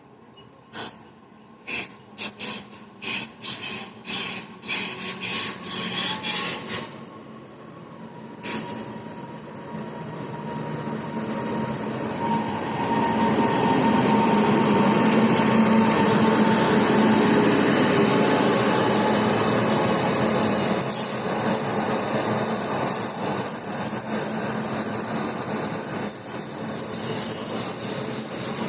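Train wheels on the rails: a run of sharp clacks, about two a second, over the first several seconds, then a rumble that swells to loud and holds. In the last third, several high-pitched metal wheel squeals come in over it.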